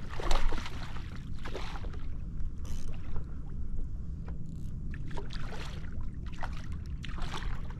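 Water splashing and sloshing in irregular bursts around a kayak as a hooked snook is fought on light tackle, over a steady low rumble.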